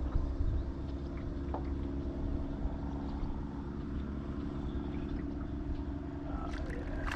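Boat motor running with a steady hum, over a constant low rumble.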